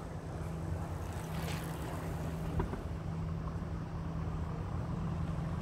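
Steady low rumble of street traffic, with a brief hiss about a second and a half in and a faint click a second later.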